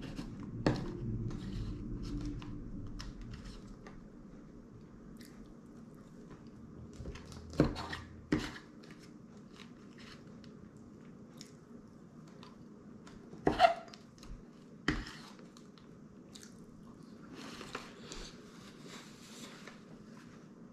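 Close-up chewing of berry pie, with a few sharp clinks of a metal fork against the pie dish as bites are cut.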